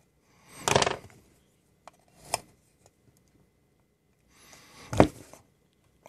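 A thin metal blade prying at the seam of a plastic USB wall adapter's case: three short scraping, cracking bursts, about half a second in, just over two seconds in and around five seconds in, the last ending in a sharp click. The case is still holding shut, clipped or perhaps glued.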